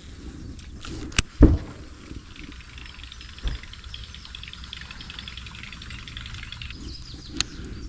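A sharp knock and then a heavy thump against the boat about a second and a half in, and another thump a couple of seconds later. Then a fishing reel is cranked, giving a fine, fast whirring tick for about four seconds that stops abruptly.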